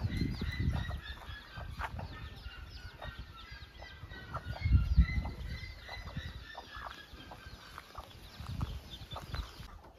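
Free-range chickens clucking and chicks cheeping as they forage, with many short high chirps throughout. A low thump comes about five seconds in.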